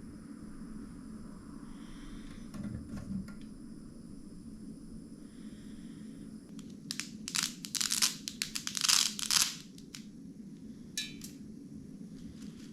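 Irregular crinkling and crunching, like material being crumpled or torn, for about two and a half seconds starting about seven seconds in, over a steady low hum.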